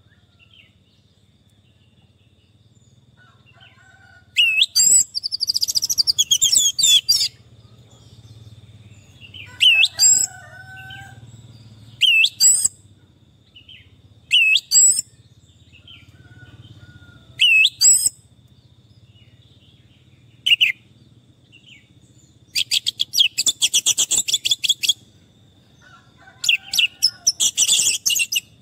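Orange-headed thrush singing: bursts of rapid, varied high whistled notes, some short phrases and a few longer runs of two to three seconds, with pauses between them. A faint steady high tone runs underneath.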